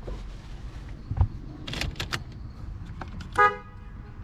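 BMW E36 car horn sounding one short beep about three and a half seconds in, set off from the newly wired horn button on a retrofitted steering wheel to test that it works. A few clicks and knocks come before it.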